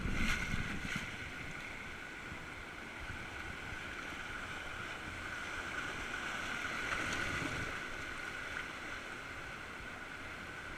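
Steady rush of river water around a whitewater raft, swelling slightly about seven seconds in.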